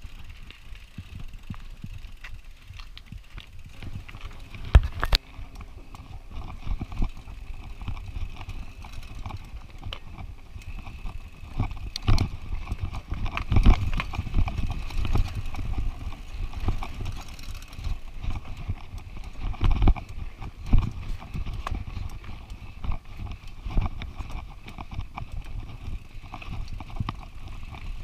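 Mountain bike rolling over bare rock slab, picked up through the handlebar mount: the bike rattles with irregular sharp knocks as the tyres hit bumps, over a steady low rumble. The loudest knocks come about five seconds in and again around twelve to fourteen and twenty seconds in.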